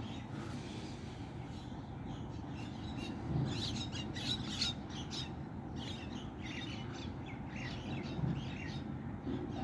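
Birds chirping repeatedly over a steady low background hum, the chirps busiest in the second half.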